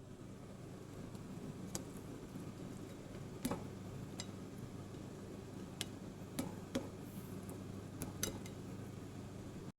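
Light clinks and clicks of kitchen utensils against dishes, scattered a second or so apart, over a steady low hum.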